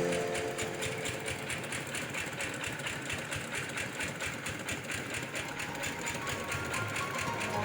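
Genset-type engine of a portable rice huller running steadily, with a rapid, even pulse. Music fades back in faintly near the end.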